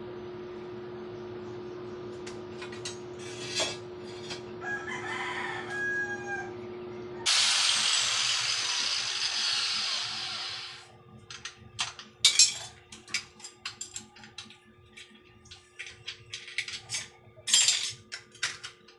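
A steady electrical hum, then about three and a half seconds of loud harsh noise from the workbench, then a run of sharp metal clinks and knocks as tools and steel parts are picked up and set down. A rooster crows in the background.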